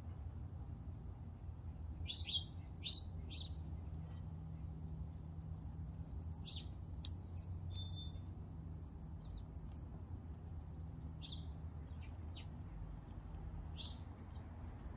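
Small birds chirping in short, scattered calls, the loudest a quick run of three about two seconds in, over a steady low background hum. A single sharp click about seven seconds in.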